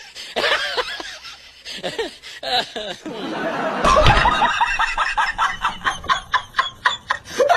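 People laughing and snickering in quick repeated bursts, with a short low thud about four seconds in.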